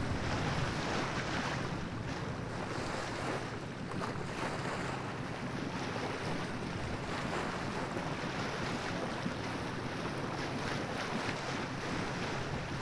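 Steady rush of wind buffeting the microphone and water washing along the hull of a sailing yacht under way.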